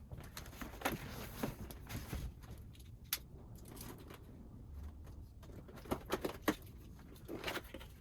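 A cardboard box being opened and handled: irregular rustling, scraping and light knocks, with a few sharper knocks about six seconds in.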